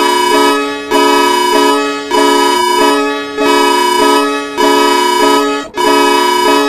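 Electronic emergency alert alarm tone: a loud chord of steady tones, a high note over a lower cluster, pulsing in a regular cycle about once every second and a bit.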